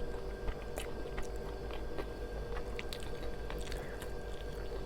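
A person biting and chewing fried masala chicken, with small scattered crunchy clicks.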